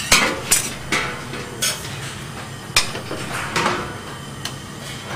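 A perforated metal skimmer and another metal utensil clinking and scraping against a copper saucepan while braised pork is lifted out of its cooking liquid: several sharp clinks at irregular intervals.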